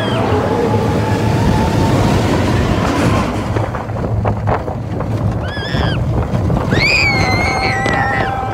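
Roller coaster train running along the track with a steady rumble and wind on the microphone, with a few clacks partway through. Riders give high-pitched screams about five and a half seconds in and again, longer, near the end.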